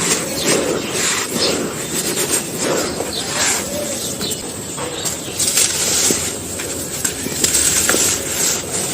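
Small dry, sandy, cup-moulded pieces being crumbled: a continuous gritty crunching full of small cracks and crackles.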